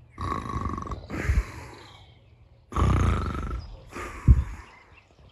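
Loud snoring, two breaths with a pause between them, each in two parts.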